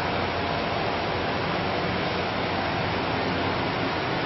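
Steady, even background hiss with a faint low hum underneath; no distinct events.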